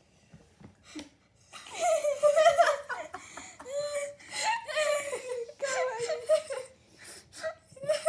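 A person laughing hard in several bouts, beginning about a second and a half in.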